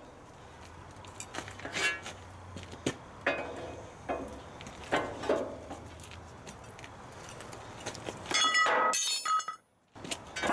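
Metal clanks and clinks from an old cast-iron geared steel shear as its blade arm is worked open, with a louder ringing metallic clang about eight seconds in.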